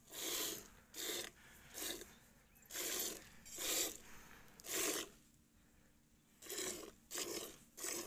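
Milk squirting from a Murrah buffalo's teats into a steel bucket of frothy milk during hand milking. Each squeeze makes a short hissing splash, about one a second, nine in all, with a pause of about a second after the sixth.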